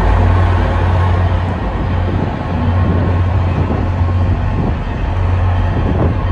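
Passenger train running across a steel truss railroad lift bridge: a loud, steady rumble.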